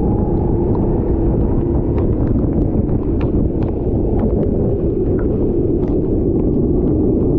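Rental racing kart engine running under load, heard on board over a heavy rumble of wind and track noise, its pitch climbing in the first second. Scattered sharp ticks and rattles sound throughout.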